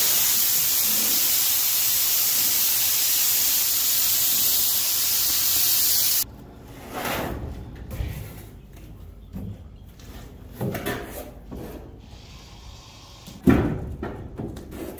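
Central Pneumatic siphon-feed spray gun hissing steadily as it sprays contact adhesive, cutting off suddenly about six seconds in. Then a few scattered knocks and thumps as an eighth-inch wood panel is handled and laid onto the foam, the loudest thump near the end.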